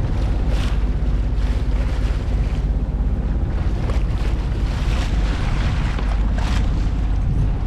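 Wind buffeting the microphone over water rushing and splashing along a sailboat's hull as it runs fast through tidal rapids. The splashing comes in irregular surges every second or so.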